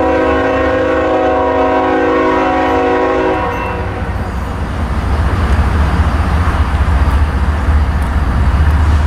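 CSX diesel locomotive's air horn sounding one long chord of several notes, which cuts off about three and a half seconds in, over the deep rumble of the locomotive. The rolling noise of the train then builds up as it moves through the crossing.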